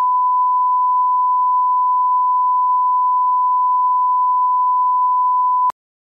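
A steady, single-pitch line-up test tone, the reference tone played with colour bars. It cuts off abruptly near the end.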